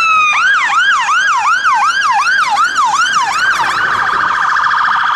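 Fire engine siren. It finishes a long slow wail, then switches to a fast yelp, about three rising-and-falling sweeps a second. Past halfway it changes again to a rapid warble at a steady pitch.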